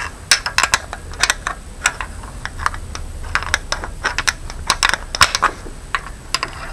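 Irregular metallic clicking from a valve rocker arm of a Chevrolet Aveo 1.5 engine being rocked by hand. The rocker has play because its hydraulic lash adjuster pushes down under a finger, which the owner suspects is the cause of the engine's cold-start lifter knock.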